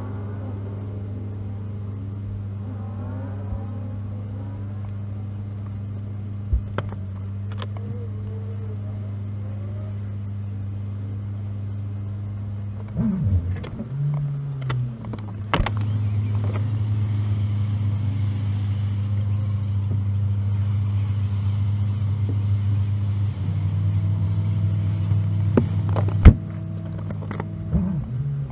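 Car driving on the freeway, its sound sped up four times: a steady low engine and road hum. About halfway through the pitch dips and climbs back, as the car slows and speeds up again. A few sharp clicks sound, the loudest near the end.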